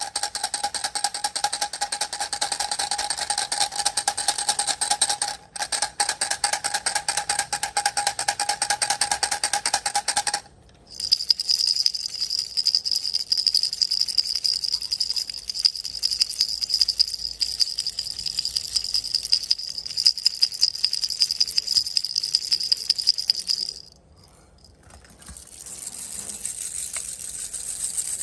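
Baby rattles shaken rapidly and continuously, a dense clatter with a steady jingling ring. About ten seconds in, one rattle gives way to a higher-pitched, brighter jingling one. It stops near the end, and after a short pause another rattle starts.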